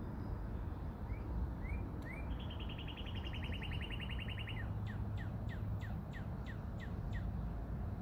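A songbird singing: a few short rising notes, then a fast, even trill for about two seconds, then a string of separate falling notes, about three a second. A steady low rumble runs underneath.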